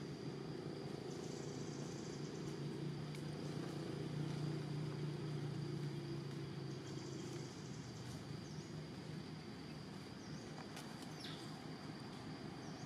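Outdoor ambience: a steady low hum, like a distant engine, that swells around the middle and eases off, under a steady high insect whine with short spells of buzzing.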